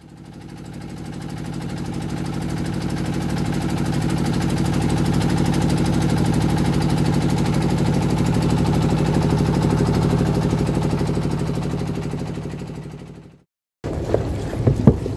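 A small wooden fishing boat's inboard engine running at a steady pace, with an even, rapid pulsing drone. It fades in over the first few seconds and fades out until it cuts off just before the end. A few sharp knocks follow near the end.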